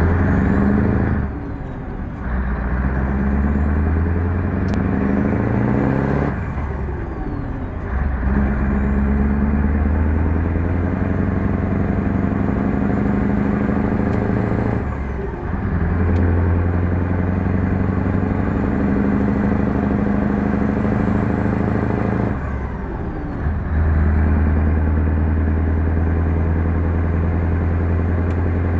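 Scania 144's 14-litre V8 diesel pulling under load, heard inside the cab. The engine note drops off and comes back four times, at gear changes.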